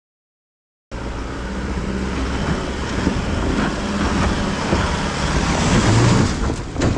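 A four-wheel-drive ute's engine working hard as it climbs a steep, rutted dirt track, growing louder as the vehicle comes up and passes close by. The sound starts suddenly about a second in.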